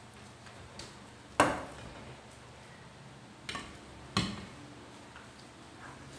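A metal pot and dishes being set down on a stainless-steel kitchen counter: three sharp knocks with a short ring, the loudest about a second and a half in and two more around three and a half and four seconds, over a faint steady low hum.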